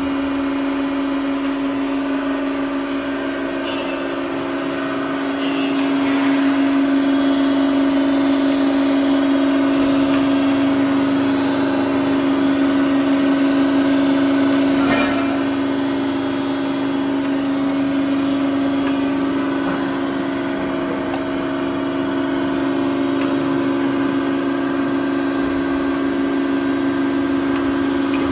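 Ku250-03/750 universal cylindrical grinder running under power, a steady motor hum that grows louder for several seconds in the middle. A single clunk about 15 seconds in.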